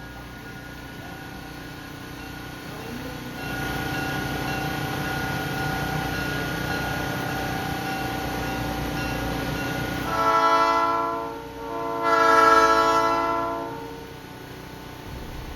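EMD GP9R diesel locomotive running, its engine growing louder about three seconds in, then sounding its multi-note air horn twice: two long blasts, the second one longer.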